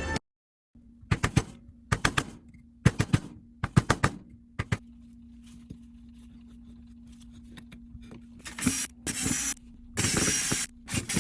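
Sand being packed into a casting mold flask: sharp knocks in quick clusters of two to four, then several louder, rough rushing bursts near the end, over a steady low hum.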